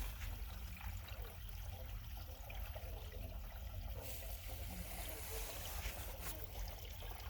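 Sump pump discharge water running through a buried 4-inch PVC drain pipe: a steady trickle of flow through the freshly patched section, which holds without leaking.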